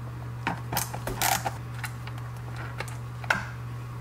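Scattered light clicks and plastic knocks as a screw is backed out with a screwdriver and the plastic mounting plate is lifted off a Toyota Celica GT-Four folding wing mirror. There is a small cluster about a second in and one sharp click past three seconds, over a steady low hum.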